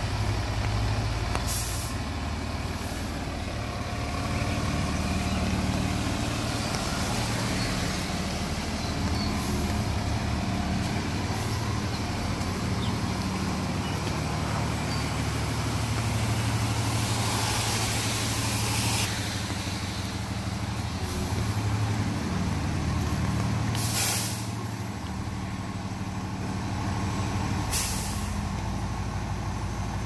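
Fire trucks' diesel engines idling and running at low speed as the apparatus back into the station bays, with short, sharp air-brake hisses about two seconds in and twice in the last six seconds, and a longer hiss of about two seconds just past the middle.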